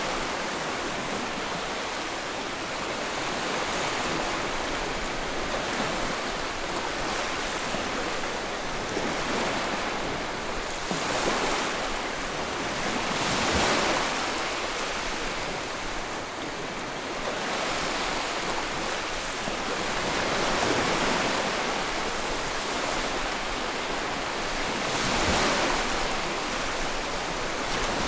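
Sea waves breaking and washing on a shore, a continuous surf with gentle swells every few seconds.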